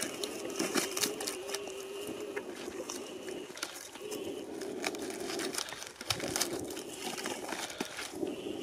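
A man blowing hard into a bundle of leaves in long breaths, about four, with short pauses between, to drive smoke into a wild bees' nest and smoke the bees out. Leaves rustle and twigs crackle throughout.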